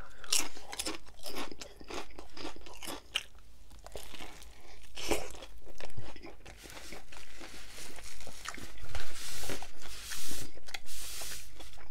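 A man chewing a crunchy tortilla chip close to the microphone, then biting into and chewing a Subway sandwich. It is a long run of many sharp, irregular crunches, thickest toward the end.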